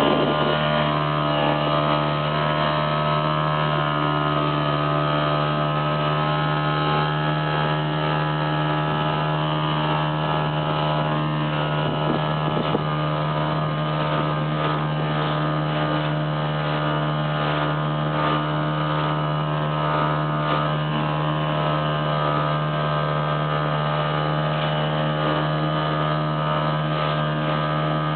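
A boat's motor running at a steady speed, giving an even hum that does not change.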